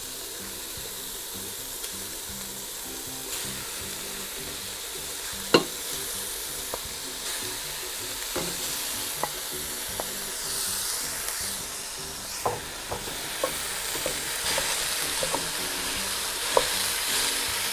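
Mixed minced meat and diced ham sizzling in hot oil in a cast-iron Dutch oven, a steady frying hiss. A wooden spoon stirs and scrapes the meat, with a few sharp knocks against the pot, the loudest about five seconds in.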